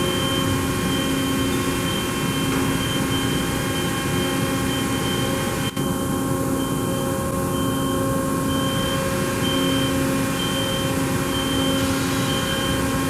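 Steady drone of running machinery, with a constant hum and several steady whining tones, broken once by a brief click about halfway.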